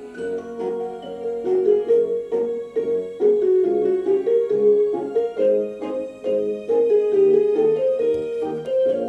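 Background music: a light piano or keyboard melody with a steady rhythm.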